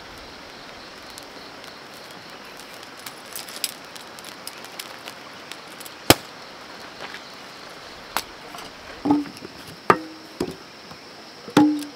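Metal paint tins knocking and clinking as they are handled and set down on stony ground, several sharp knocks in the last few seconds, each leaving a brief metallic ring. Earlier, light ticks and one sharp click over a steady background hiss.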